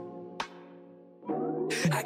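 Intro jingle music: a held chord fades away, a sharp hit comes about half a second in, then a new chord swells in with a rising sweep.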